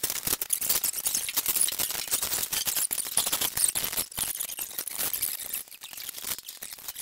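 Dense, rapid clicking and light metallic rattling from hand tools at work, easing off somewhat near the end.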